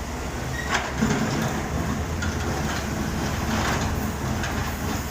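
Heavy diesel construction machinery running steadily, with a few sharp metallic clanks: one about a second in and another past the middle.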